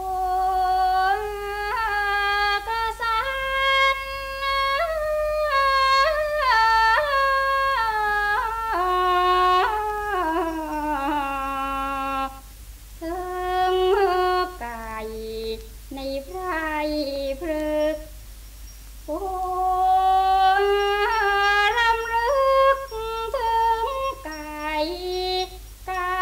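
Women singing together in Thai classical style, a slow melismatic line of long held notes that slide and bend between pitches, with no instruments heard under the voices and a few short breaks near the middle. A steady low hum from the old LP recording lies beneath.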